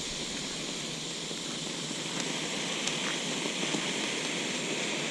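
Consumer firework fountain spraying sparks with a steady hiss and a few faint pops.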